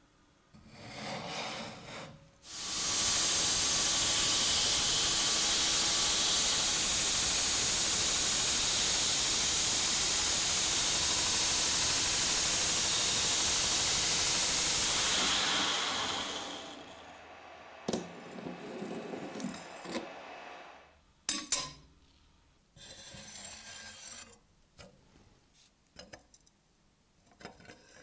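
Belt grinder grinding the flat sides of a heavily rusted steel machete blade clamped in a sharpening jig: a steady, loud hiss that lasts about thirteen seconds and then fades out. Scattered clicks and knocks follow as the blade and jig are handled.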